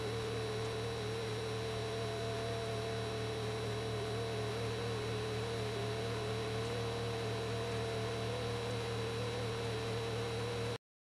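A steady hiss and low hum with one held, slightly wavering mid-pitched tone above it. It cuts off suddenly just before the end.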